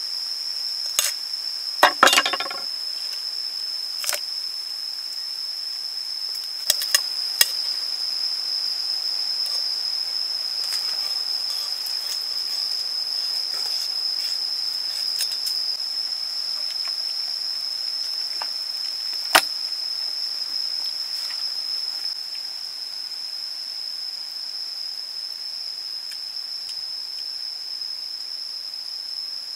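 A steady, high-pitched insect drone, like cicadas, goes on throughout. Over it come a handful of sharp cracks and knocks as a cleaver chops through the ribs of a raw duck; the loudest, with a short crackle, is about two seconds in, and a single sharp one comes near twenty seconds.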